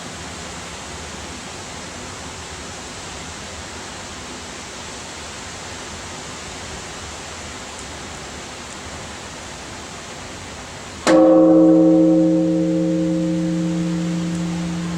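Large bronze Japanese temple bell (bonshō) struck once, about eleven seconds in, after a steady background hiss; it rings with a deep hum and several overtones that slowly fade.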